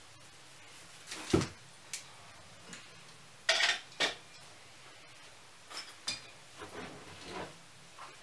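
Scattered light clinks and rustles as an artificial Christmas tree hung with ornaments and string lights is handled and untied, with a dull knock about a second in and a cluster of clinks about halfway through.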